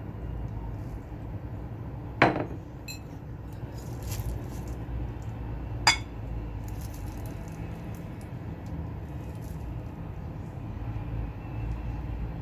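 Two sharp clinks, about two seconds in and about six seconds in, as sauce bottles knock against a bowl while sauce is poured over prawns, over a steady low background hum.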